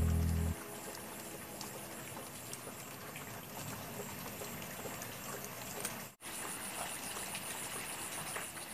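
Rain falling: a steady hiss with scattered small ticks of drops. A music track fades out about half a second in, and the sound drops out for an instant about six seconds in.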